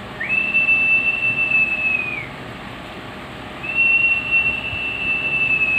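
Two long, level whistled notes, each lasting about two seconds, with a short slide up at the start and a slide down at the end.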